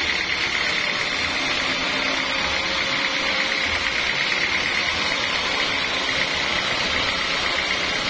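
Band sawmill sawing lengthwise through a large acacia log, running steadily with a constant high whine over the machine noise.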